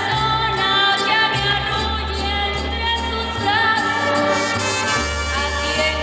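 A woman singing a ranchera into a microphone, backed by a live mariachi band: violins and guitars over a deep bass line that steps from note to note.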